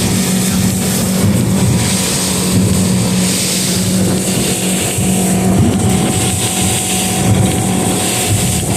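Engine running steadily at a constant pitch, with a strong steady hiss over it.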